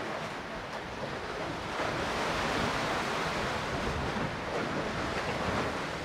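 Baltic Sea waves washing among the concrete tetrapods of a breakwater, the wash swelling about two seconds in and easing near the end, with wind rumbling on the microphone.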